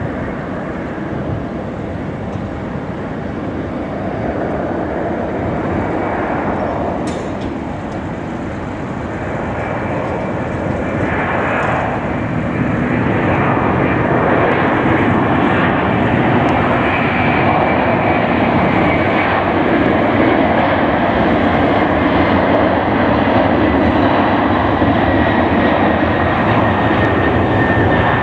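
Boeing 767-300ER's two Pratt & Whitney PW4056 turbofans spooling up to takeoff thrust for the takeoff roll. The sound grows louder over the first half, then holds a steady heavy rush with a faint high whine on top.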